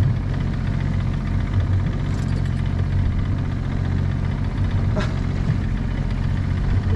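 Small boat's engine idling with a steady low hum, and a single sharp click about five seconds in.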